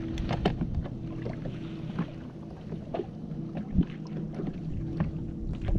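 A small boat's motor running at a steady hum, with scattered light clicks and knocks over it and one sharper knock near the end.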